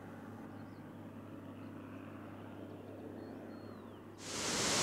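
Faint outdoor ambience with a low steady hum and a faint high whistle that falls in pitch. Near the end it cuts suddenly to the loud, steady rush of a fast-flowing river in rapids.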